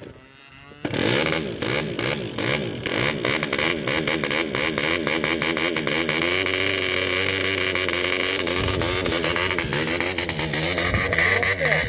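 A small model aircraft engine starts running close by about a second in. Its pitch wavers up and down for the first few seconds, then settles into a steadier run.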